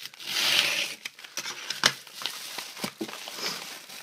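A mailed package being opened by hand: a loud rip of about half a second near the start, then packaging crinkling and several sharp clicks and taps.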